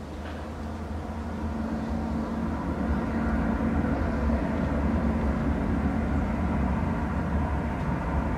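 Boeing C-17 Globemaster III's four Pratt & Whitney F117 turbofans, heard as a steady jet rumble with a low hum as the airlifter flies a low missed approach. The sound grows louder over the first three seconds, then holds steady.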